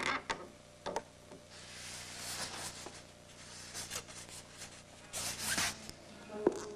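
Dry rubbing and scraping noises that swell twice, with a few sharp clicks in the first second and one sharp knock near the end.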